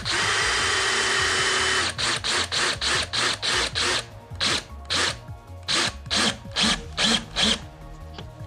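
Power drill running: one unbroken spell of about two seconds with a motor whine, then a string of short trigger bursts, about three a second at first and more widely spaced after about four seconds in.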